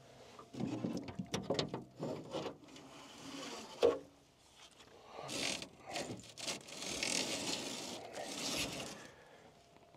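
Fishing rods and reels clacking against each other and the boat's rod locker as they are handled, with one sharp knock about four seconds in, then the scratchy rustle of a braided mesh rod sleeve being slid off a rod.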